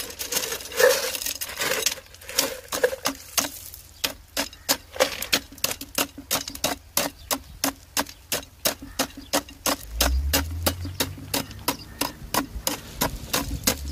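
Steel tamping rod jabbed repeatedly into crushed-stone coarse aggregate in a cylindrical measure, clacking on the stones about three times a second: rodding a layer to compact it for the rodded (compacted) bulk density test. A low steady hum comes in about ten seconds in.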